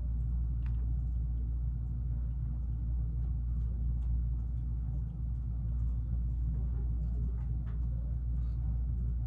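A steady low hum and rumble of room noise, with a few faint scattered clicks.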